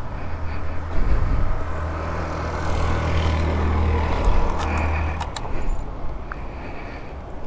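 Motor vehicle engine running in road traffic: a low, even hum that swells about a second in and fades after about five seconds, with a couple of sharp clicks near the fade.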